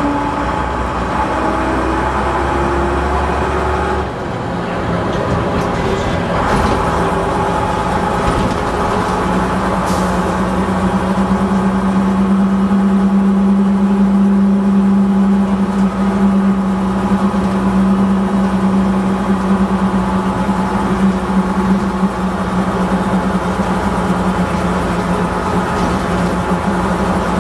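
Leyland engine of a Bristol VR double-decker bus running under way, heard from inside the saloon. It pulls with a rising note, the note drops about four seconds in, and then it runs at a steady speed with a strong, even whine.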